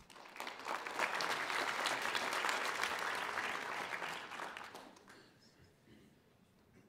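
Audience applauding, swelling about half a second in and dying away after about five seconds.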